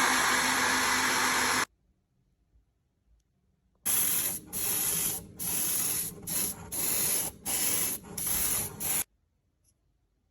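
Paint spraying with a steady hiss that cuts off after nearly two seconds. After a short silence comes a run of seven or so short spray bursts, each about half a second long.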